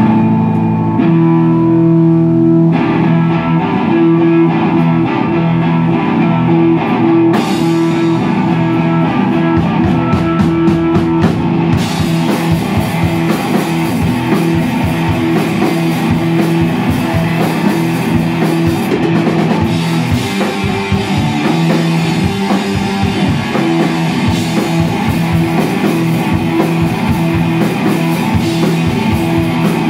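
Live rock band playing. An electric guitar opens with held chords, drum hits come in about seven seconds in, and the full band is playing loudly by about twelve seconds.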